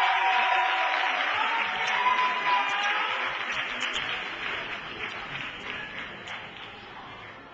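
Audience applauding and cheering, with shouts and whoops over the clapping, dying down gradually.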